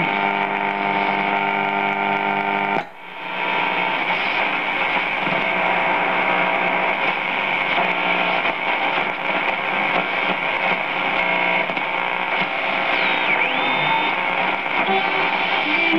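Lemouzy MYA valve radio being tuned between stations: static from the loudspeaker, with a steady tone that cuts out briefly about three seconds in. Near the end a tuning whistle dips in pitch, rises again and holds.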